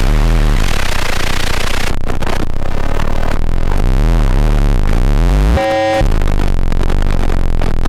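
Loud experimental electronic noise music. A dense wall of harsh noise gives way after about two seconds to warbling, pulsing low tones, then a brief chord of steady tones cuts in and out about three quarters of the way through before the noise returns.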